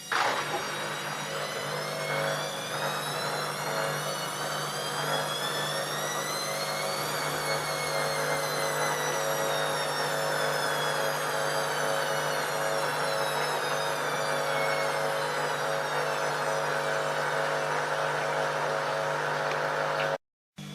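ELIN A 100 E washing machine running: a motor whine that climbs in pitch for about seven seconds and then slowly falls back, over a steady mechanical hum.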